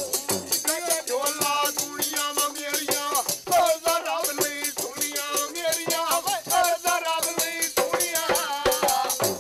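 Punjabi folk song: a male voice singing a wavering melody over the steady jingling of a chimta (long iron tongs with metal jingles) and the beat of a dhol barrel drum.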